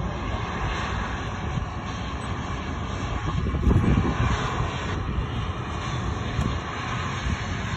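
A twin-engine jet airliner, a black StarFlyer Airbus A320, rolling along the runway with its engines running, heard from a distance as a steady broad jet noise over an uneven low rumble, swelling a little midway.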